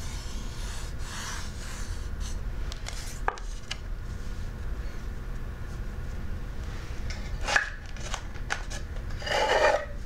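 Fingers rubbing over a sandpaper letter board, then wooden letter boards sliding and being shifted on a table, with a click about three seconds in. The loudest is a scrape near the end as a board is drawn out of a wooden box.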